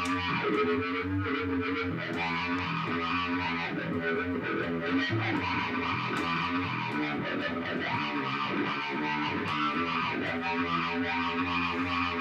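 Guitar-led music on amplified electric guitar with effects and some distortion. It comes in suddenly at full level and carries on steadily.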